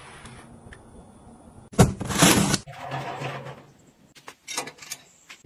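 Household objects being handled: a sharp knock and a loud clatter a little under two seconds in, then quieter rustling and a few light clicks near the end.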